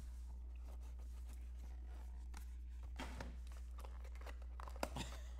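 Faint rustling and a few light clicks of sports-card packaging being handled and opened, over a steady low electrical hum.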